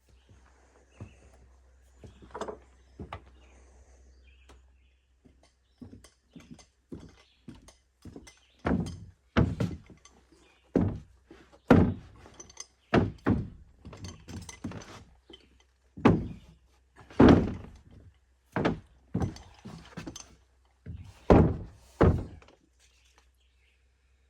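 An irregular series of loud wooden thunks and knocks from carpentry work, about twenty in all, sparse at first and heaviest in the second half.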